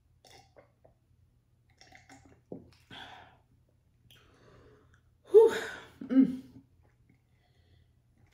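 A woman sipping and swallowing iced tea, with small mouth and glass sounds, then two short wordless vocal sounds about five seconds in, the first the loudest.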